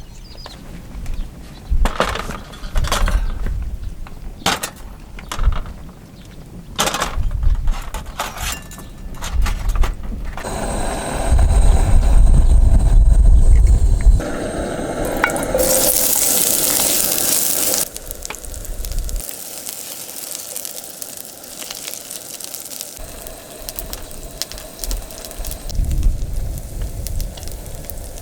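Cookware clinking and knocking during outdoor cooking: a run of sharp clinks and knocks, then a stretch of low rumble, then a few seconds of sizzling hiss that starts and stops abruptly.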